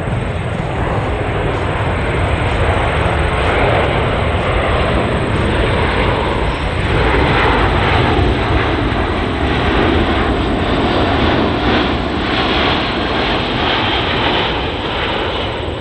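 C-17 Globemaster III's four Pratt & Whitney F117 turbofan engines on a low display pass: a loud, steady jet rumble that swells a little around the middle of the pass.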